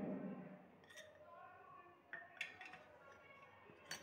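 Three faint, light clinks of kitchenware, the sharpest about two and a half seconds in.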